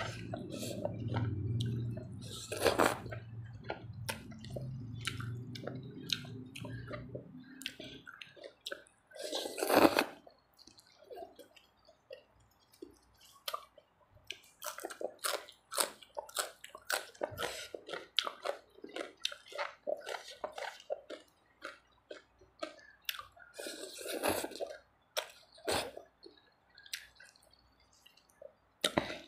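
Close-miked eating sounds: wet chewing, smacking and slurping of rice noodles in spicy papaya salad, with louder crunchy bites of raw vegetable stalks, the loudest about ten seconds in. A low steady hum underneath dies away about eight seconds in.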